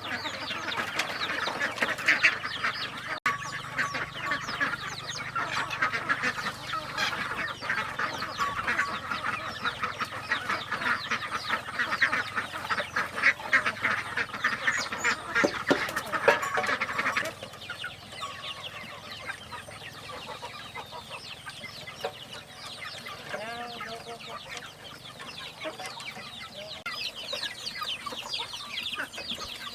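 A flock of farm poultry, mostly chickens, calling and clucking in many overlapping short calls. About two-thirds through it drops and becomes quieter and sparser.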